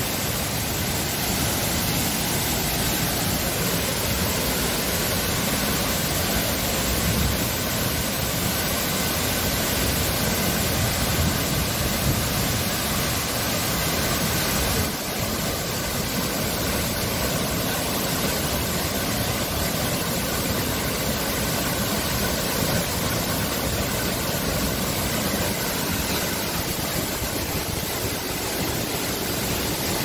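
Benang Stokel's twin waterfalls pouring onto the rock pool below: a loud, steady rush of falling water with a deep rumble underneath.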